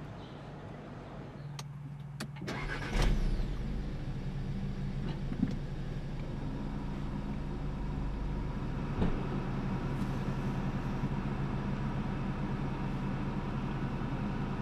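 A 2014 Audi S3's turbocharged 2.0-litre four-cylinder engine starting: a couple of clicks, then it fires about three seconds in with a brief flare of revs and settles into a steady idle.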